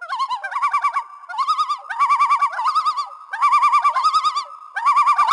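Bird-like warbling calls in a quick series of short phrases, each a fast wavering trill, over a steady high tone.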